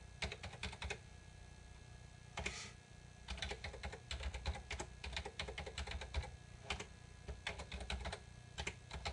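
Typing on a computer keyboard: quick runs of keystrokes as text is entered into a form, with a pause of about two seconds after the first second.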